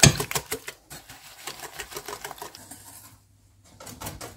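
Wire whisk beating eggs and sugar in a stainless steel bowl, the whisk clicking rapidly against the metal. The clicks are loudest at the start, then fainter, stop for a moment about three seconds in, and resume.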